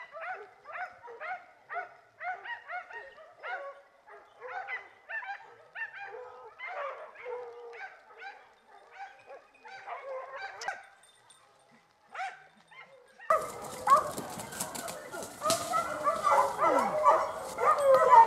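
Pack of hunting hounds giving tongue, a regular run of about two yelps a second that fades out about ten seconds in. After a short lull, louder and denser baying from several dogs starts about thirteen seconds in, over a steady hiss and crackle on the microphone.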